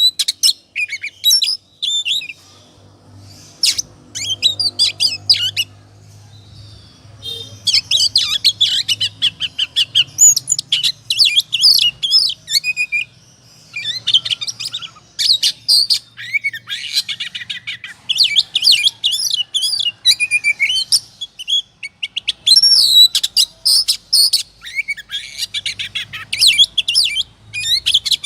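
Oriental magpie-robin (kacer) singing in excited full song: a rapid, varied run of whistles, trills and chatters in long bursts broken by a few short pauses. This is the fired-up, aggressive singing used as a lure to provoke other male magpie-robins.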